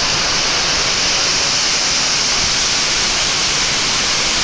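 Steady, even rush of falling water from the man-made waterfalls cascading down the Krakatau volcano, heard as a continuous hiss.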